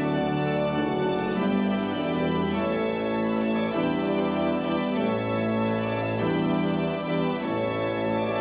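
Organ playing a slow recessional as the academic procession leaves: full, sustained chords that change every second or two.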